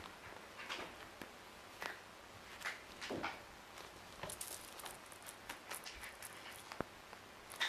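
Bengal kitten scrabbling and pouncing on a fleece blanket while grabbing a fuzzy toy: scattered soft rustles and scratches, with a sharp tick about seven seconds in and a louder rustle near the end.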